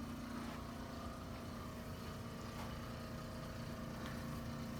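A steady machine hum with a constant low tone, and a faint click or two.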